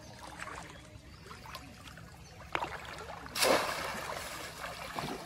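Bamboo cone fish trap plunged down into shallow floodwater: light trickling and sloshing, then one sharp, loud splash about three and a half seconds in that dies away over a second or so.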